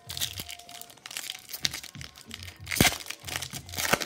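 Foil trading-card pack wrapper being crinkled and torn open by hand: a run of sharp crackling rustles, loudest about three seconds in and again near the end.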